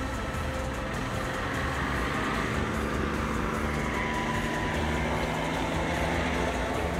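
Motorcycle engine running low and steady as the bike rolls slowly and pulls over to a stop.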